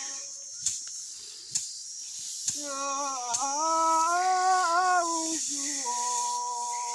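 A woman's voice singing or humming a slow melody in long held notes that glide gently up and down, starting about two and a half seconds in, over a steady high chirring of crickets.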